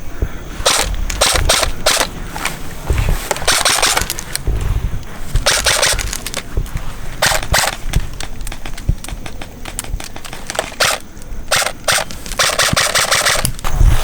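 Airsoft rifles firing in repeated rapid-fire bursts, some short and some held for about a second, the longest burst near the end.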